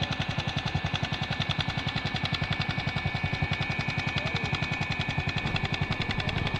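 ATV engine idling with an even, rapid putting of about a dozen pulses a second, and a faint steady high whine above it.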